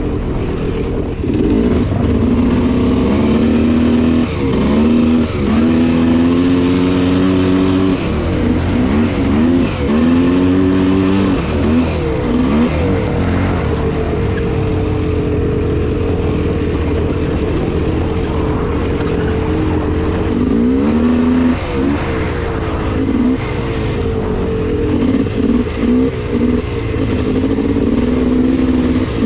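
Polaris Scrambler 400 two-stroke ATV engine running under load on the trail, its pitch rising and falling again and again with the throttle. It holds steadier for a stretch in the middle, and near the end comes a run of quick throttle chops and blips.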